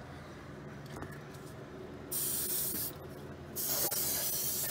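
Aerosol spray can hissing in two short bursts, about two seconds in and again from about three and a half seconds in, as a nearly empty can is squeezed for what is left.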